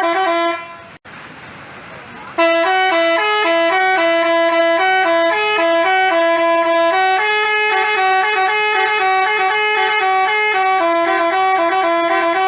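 Telolet basuri multi-tone bus horn playing a melody of short stepped notes. It sounds briefly at the start, breaks off for about two seconds, then starts again at about two and a half seconds and plays on without a break.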